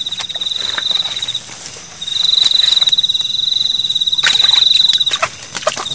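High, pulsing trill of a calling night animal, in long unbroken stretches that stop about a second and a half in and again near the end. A few short clicks and rustles come in the later part.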